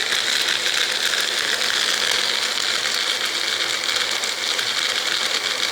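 Personal blender running steadily, its cup pressed down onto the motor base, blending a milk, banana and chocolate mix.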